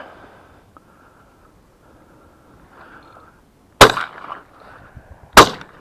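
Double-barrelled shotgun fired twice, a second and a half apart (a double), each shot a sharp report with a short echoing tail. Faint wind noise underneath.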